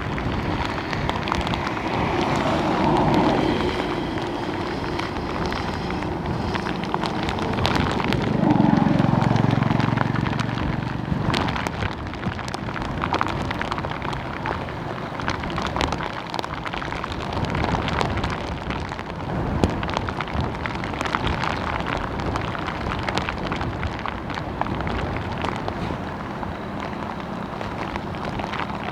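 Steady rush of water from a fast-flowing stream swollen by heavy rain, with scattered small splashes and ticks; it swells briefly louder and deeper about eight seconds in.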